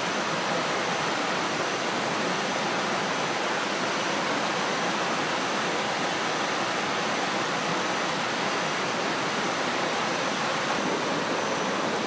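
Steady, even rushing noise of the rainforest background, with no break or change.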